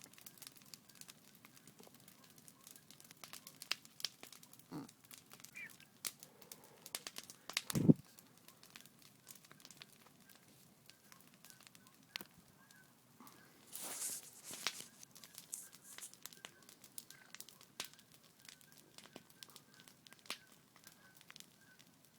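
Campfire burning down to embers, crackling with scattered sharp pops. A louder low thump comes about eight seconds in, and a brief hiss comes about two-thirds of the way through.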